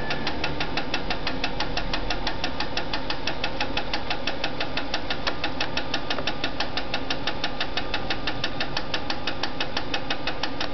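Vibrograf B200 watch-timing machine clicking rapidly and evenly, several clicks a second in time with the watch's beat, over a steady machine hum.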